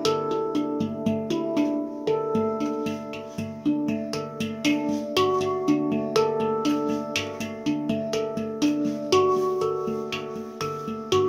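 Taopan mini handpan tuned to the Dimelodia Extended scale, played with bare hands: a steady flow of struck notes, several a second, each ringing on under the next.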